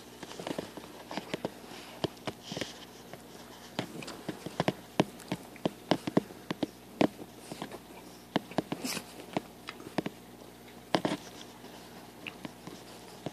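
Small black-and-tan dogs play-fighting at close range: irregular sharp clicks of snapping jaws and teeth, with scuffling against the bedding. A faint steady hum runs underneath.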